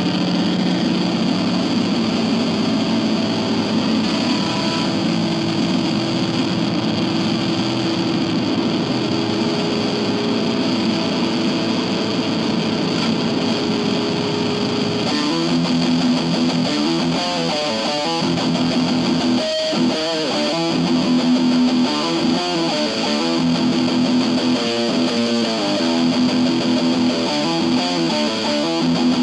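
IYV thinline Telecaster-style electric guitar played through a Keeley compressor and Pigtronix Space Rip pedal into an Orange Crush 20 amp. Long held notes for about the first half, then short, choppy repeated notes from about halfway.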